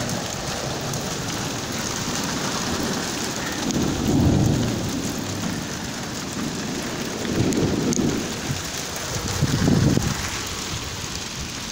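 Heavy shower of hail and snow falling steadily, a dense hiss of stones landing on cars and the street, with three low rumbles of thunder swelling up about four, seven and a half, and ten seconds in.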